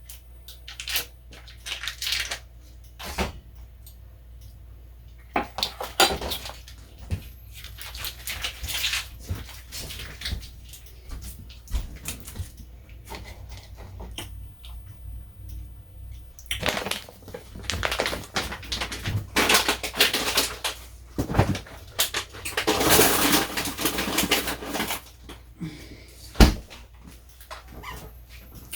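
Kitchen work: scattered knocks and clatter of dishes and utensils, with a few seconds of denser rushing or scraping noise about two-thirds of the way through.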